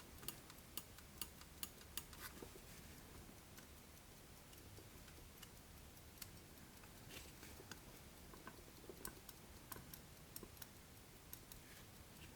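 Faint, sharp clicks from an antique pocket watch as its date and calendar are set. A run of about two clicks a second in the first couple of seconds, then scattered single clicks.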